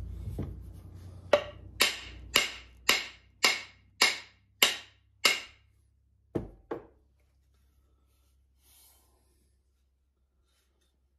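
A hammer striking the end of a wooden axe handle, about nine sharp knocks half a second apart, to drive the axe head further onto the handle. Two duller knocks follow.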